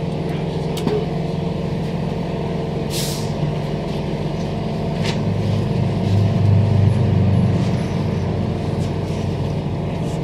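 Interior noise of a Transperth A-series electric train carriage: a steady low hum that swells for a couple of seconds past the middle, with a short hiss about three seconds in and a click about five seconds in.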